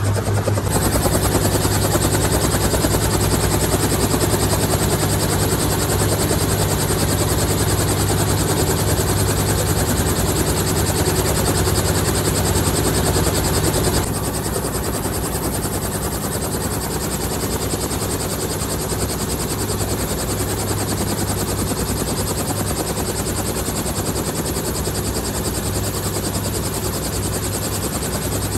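Robinson R44 tour helicopter running: a steady engine and rotor drone with a rapid pulsing, a little quieter from about halfway through.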